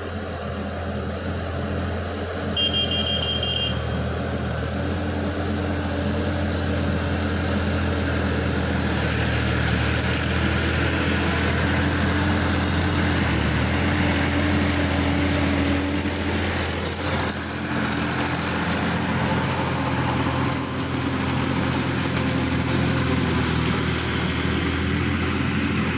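Sonalika DI-50 RX tractor's diesel engine running steadily while it pulls a rotavator through wet paddy-field mud. A brief high tone sounds about three seconds in.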